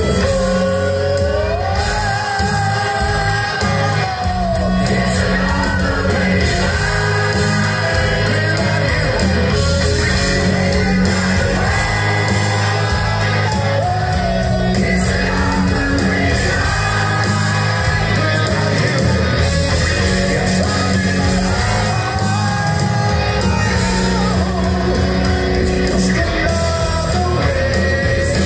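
Live hard rock band playing loud: a male lead singer holding long, gliding sung lines over electric guitars, bass and drums.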